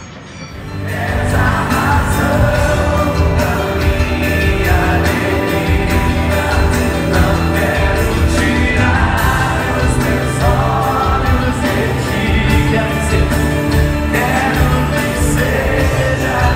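Live Christian worship band playing loudly, with guitars and singing; the music comes in suddenly about a second in.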